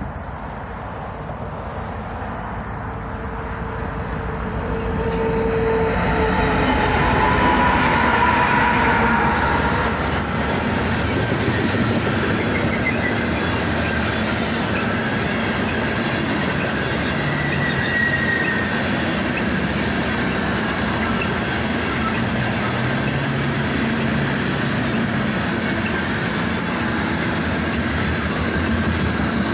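Loaded coal train passing close by: the BNSF diesel locomotives (EMD SD70ACe and GE ES44AC) grow louder over the first several seconds and go by, then loaded coal cars roll past with a steady rumble and clatter of wheels on rail and a few brief wheel squeals.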